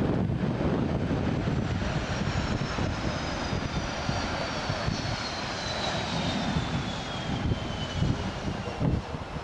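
Airliner passing by with a steady engine roar, its high engine whine falling in pitch as it goes past.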